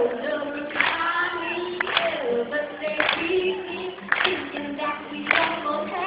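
Voices singing over music, with a sharp beat about once a second.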